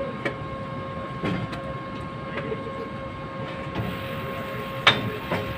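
Steady mechanical hum with a constant mid-pitched tone, broken by scattered sharp metallic clicks and knocks of tools on the pipework; a high hiss joins about four seconds in.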